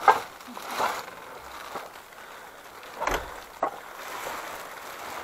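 A steady faint hiss with a few brief knocks and rustles, the loudest a dull knock about three seconds in.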